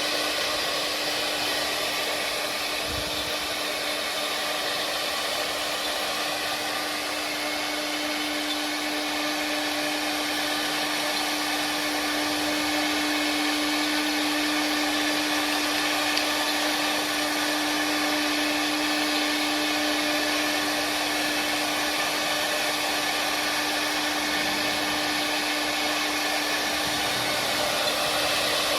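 Four-head CNC wood carving machine running, its spindles giving a steady whine over an even rushing noise.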